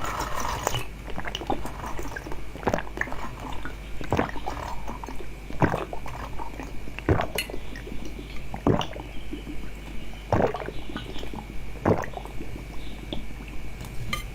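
Close-miked eating: wet, squishy chewing and mouth smacks, with a sharper click about every second and a half.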